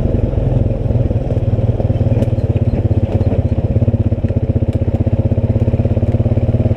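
ATV engine running steadily along a trail, a low drone with a fast even pulse, with a few faint clicks from the trail or the machine.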